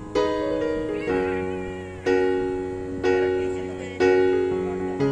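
Background piano music: slow, gentle chords struck about once a second and left to ring out.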